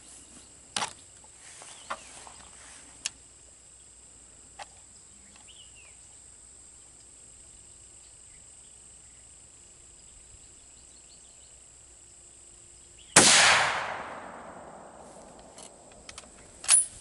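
A single rifle shot from a Savage 110 bolt-action in .30-06 about thirteen seconds in, its report dying away over about two seconds. Before it come a few light clicks and knocks of handling the rifle, and a sharp clack follows near the end.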